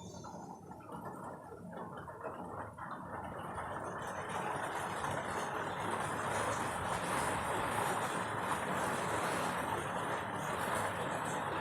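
A steady, noisy rumble that grows louder about four seconds in and then holds.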